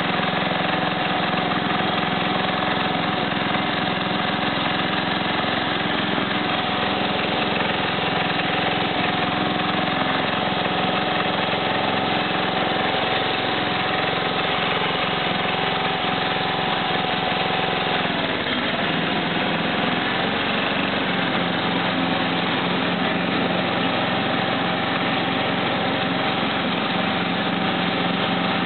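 Simplicity 4211 lawn tractor's engine running steadily while the tractor drives across the lawn. About two-thirds of the way through, the engine speed dips briefly, then settles a little lower.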